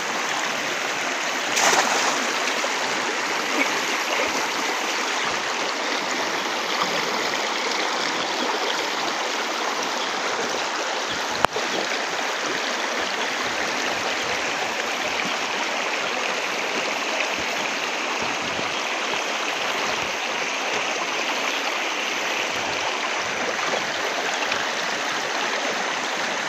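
Steady rushing of a flowing river. About two seconds in, a brief splash as the thrown cast net lands on the water, and a single sharp click near the middle.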